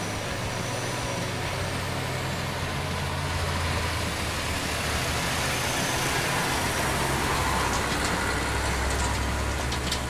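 Heavy logging truck's engine running steadily with a low hum, growing somewhat louder through the middle, with a few faint ticks near the end.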